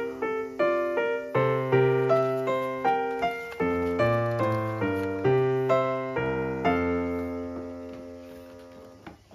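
Background piano music: a gentle melody of struck notes over low chords, ending about two-thirds of the way in on a held chord that slowly fades out.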